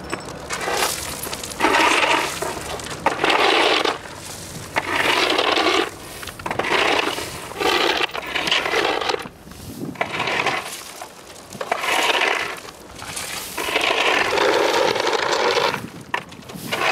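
Skateboard scraping and clattering in a series of loud scrapes, each lasting a second or two, with short pauses between them.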